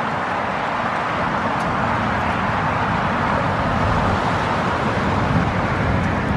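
Steady rushing noise of wind over the microphone while cycling, mixed with waves washing over the rocks below a seawall.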